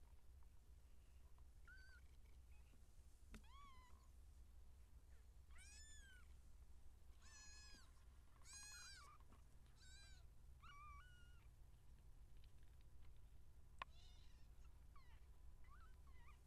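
Two-week-old Siamese kittens mewing faintly: about ten short, high-pitched mews scattered through, each rising and falling in pitch, the loudest about nine seconds in. A low steady hum lies beneath.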